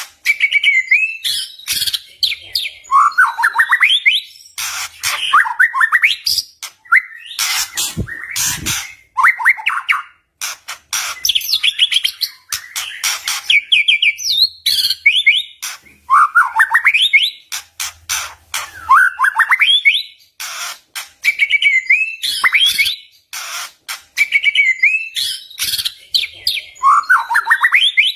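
White-rumped shama (murai batu) singing loudly: fast rising trilled phrases broken by sharp clicking notes, the same phrases coming round again every several seconds.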